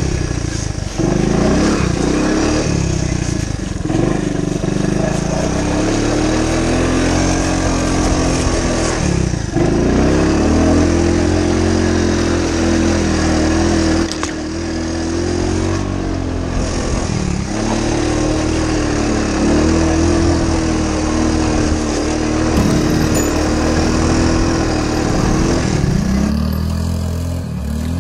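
1985 Honda ATC 125 three-wheeler's four-stroke single-cylinder engine running under way, its pitch climbing and dropping again and again as the throttle is opened and closed.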